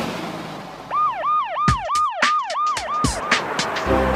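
Cartoon police-car siren effect: a fast rising-and-falling wail, about three cycles a second, lasting a little over two seconds, with a few short sharp effect sounds over it.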